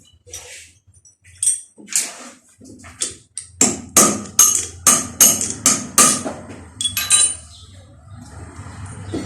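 Metal being struck repeatedly: scattered sharp knocks, then a quick, even run of about three strikes a second for a few seconds before stopping, over a steady low hum.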